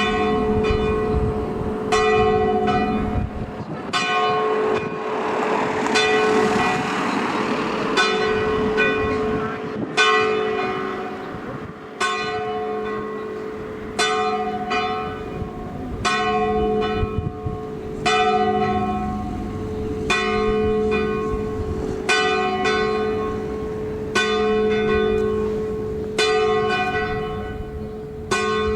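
A single church bell ringing steadily, one stroke about every two seconds, each stroke ringing on into the next. A swell of rushing noise rises and fades a few seconds in.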